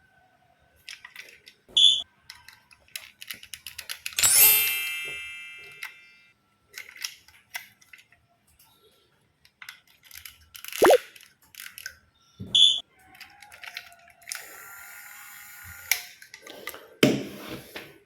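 Toy play: scattered clicks and knocks, two short high beeps about ten seconds apart, and a ringing chime about four seconds in that fades away over about two seconds. A steady hiss lasts about a second and a half near the end.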